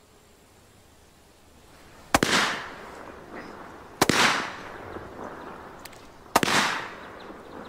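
Three sharp bangs from small explosive charges such as blanks or firecrackers, about two seconds apart, each trailing off over about half a second.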